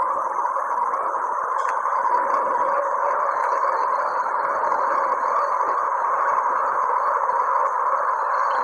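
A steady rushing drone centred in the middle range, with faint thin tones held above it, presented as the sound of the planet Uranus: a space sound rendered as audio.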